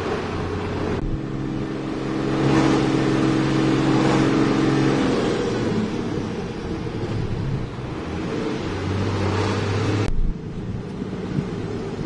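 Heavy diesel engine running steadily, its sound changing abruptly about a second in and again near the end.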